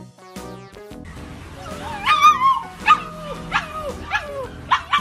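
Music for about the first second, then a husky-type puppy gives a series of short, pitched yips and whining calls that bend up and down, about three every two seconds, getting louder.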